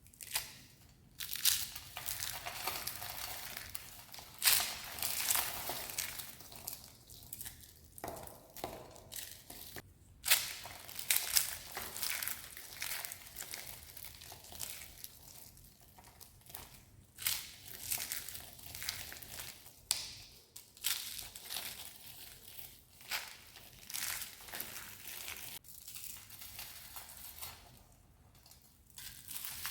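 Dry soap being crushed, crispy crunching and crackling in irregular bursts, some sharp and loud, with short pauses between.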